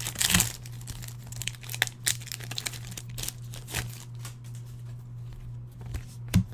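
Topps Chrome trading-card pack being handled: the wrapper crinkles and the cards click and slide against each other as they are flipped through, with sharper snaps about a third of a second in and near the end. A steady low hum runs underneath.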